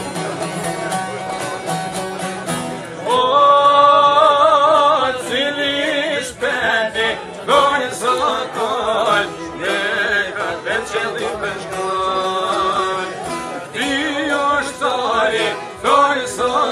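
Two çifteli, Albanian long-necked lutes, plucked in a quick folk tune. About three seconds in, men's voices join, singing loudly with a wavering vibrato over the strings.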